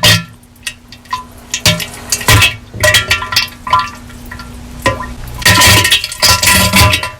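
Heavily distorted diarrhea sound effect: irregular wet sputters and splatters in uneven bursts, loudest in a cluster about two to three seconds in and again near the end.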